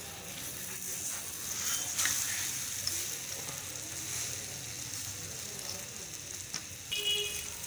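Egg paratha frying in oil on a flat griddle pan: a steady sizzle, with a sharp tap about two seconds in.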